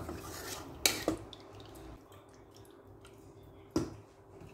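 Faint watery sounds from meat and water in a rice cooker pot, with a light knock about a second in and another near the end.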